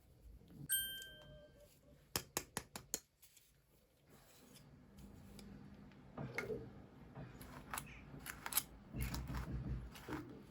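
Hands handling small plastic packaging and pieces. There is a click with a short ringing ping, then a quick run of about six sharp clicks, then irregular rustling and tapping with a few soft bumps.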